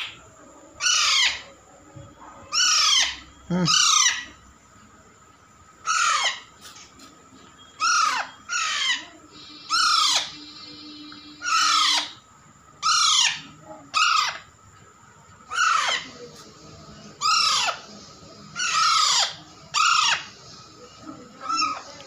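Young Alexandrine parakeet giving loud, harsh squawks over and over, each call sliding down in pitch, about one every second or so.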